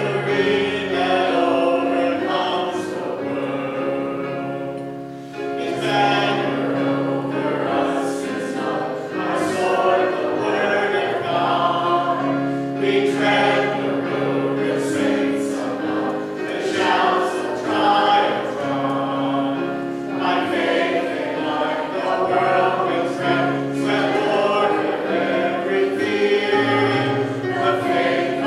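Church choir singing a hymn in several parts, with notes held for a second or two.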